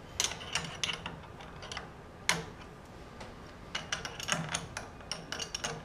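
Sharp metallic clicks and ticks of a hand wrench working a threaded fitting on a brake caliper, coming irregularly: a few at the start, one louder click a little over two seconds in, and a quick run of them near the end.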